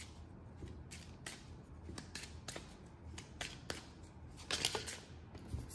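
Tarot cards being shuffled and handled: a run of light, irregular card snaps and clicks, with a quick cluster about four and a half seconds in.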